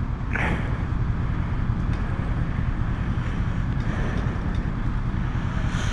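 Ducati Hypermotard motorcycle engine idling steadily, a low rumble, with a brief rustle of banknotes being handled about half a second in.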